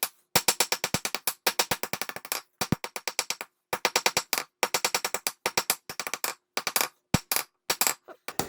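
Hand hammer forging a hot railroad spike on the anvil: runs of rapid, evenly spaced blows, about six or seven a second, with short pauses between runs as the transition is evened out on each side.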